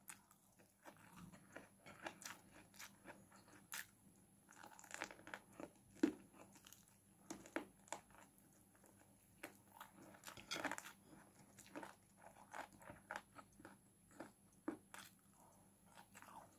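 Faint mouth sounds of a person chewing and biting cooked chicken eaten by hand: soft wet clicks and smacks, irregular, with a slightly louder stretch of chewing about ten seconds in.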